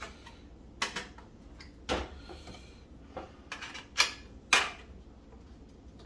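Sharp plastic clicks and knocks from handling a microwave's black plastic control-panel housing, about seven in all, the two loudest close together about four seconds in.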